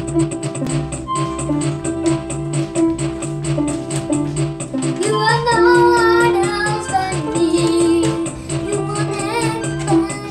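Electronic keyboard playing a melody over a steady beat; about halfway through a girl starts singing along.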